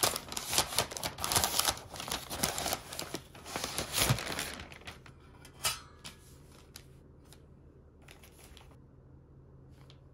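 White wrapping paper being torn open and crumpled by hand, a dense rustling and crinkling for about the first five seconds. A single short knock comes about six seconds in, then only faint room tone.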